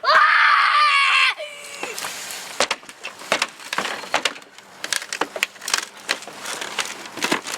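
A loud drawn-out yell for about a second, then a string of irregular knocks and cracks of wooden boards being smashed apart.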